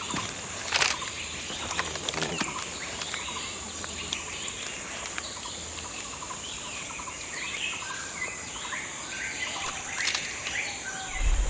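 Small birds chirping and calling over and over, with a couple of sharp clicks, one near the start and one near the end, over a faint steady hiss.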